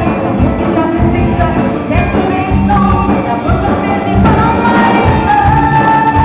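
Folk rock band playing live through a hall PA: drums and guitars with a violin. A long high note is held from about four seconds in.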